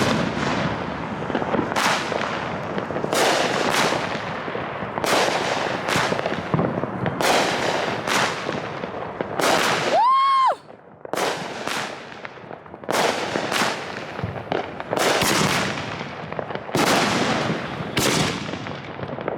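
New Year's fireworks going off one after another: repeated sharp bangs over a constant crackle. About halfway through, a single whistle rises in pitch.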